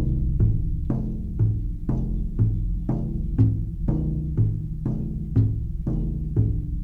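Background music: a low drum struck at a steady pace about twice a second over a deep sustained tone.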